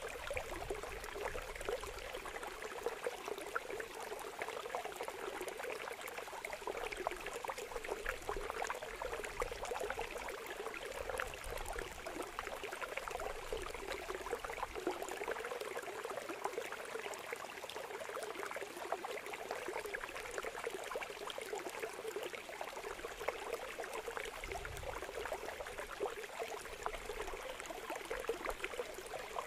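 Oil sizzling in a frying pan around frying patties: a steady crackling hiss that does not change.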